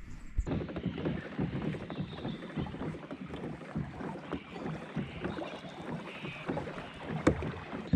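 Water splashing and gurgling against the hull of a pedal-driven Pelican Catch 110 HDII fishing kayak as it moves along, an irregular jumble of small splashes starting about half a second in. There is one sharp click near the end.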